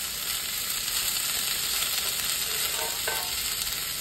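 Soaked chickpeas with fried onions and chillies sizzling in hot oil in a pan, a steady frying hiss.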